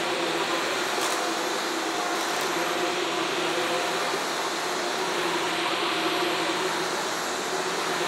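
Shark Stratos AZ3002 upright vacuum cleaner running steadily with its floor switch set for thick carpet, a constant motor whir with a hum, as its DuoClean brush head is pushed over carpet.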